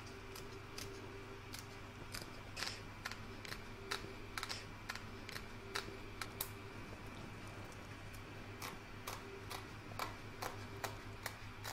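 Small curved embroidery scissors snipping away excess fabric close to the stitching on a hooped piece: a string of faint, irregular clicks over a low steady hum.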